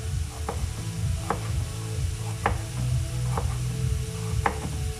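Knife cutting a carrot on a cutting board: five sharp strikes about a second apart, over a steady low rumble.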